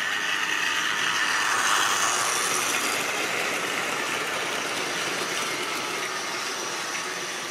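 Tri-ang or Lima model goods train running past on the layout's track, its wagons rolling by. The noise rises to its loudest about two seconds in and then slowly fades.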